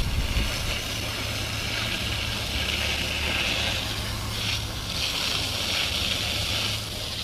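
Garden-hose spray nozzle jetting water against a brick wall and concrete footer: a steady hiss of spray with splatter, swelling and easing as the jet is moved along the wall. A low steady hum runs underneath.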